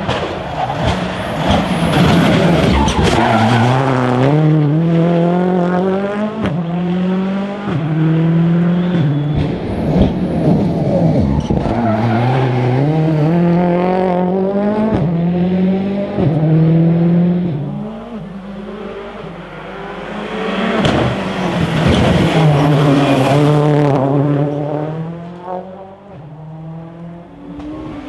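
Rally car engine accelerating hard through the gears, each gear a climbing pitch cut off by an upshift. The sound drops away about two-thirds of the way through, then builds again into another run of upshifts.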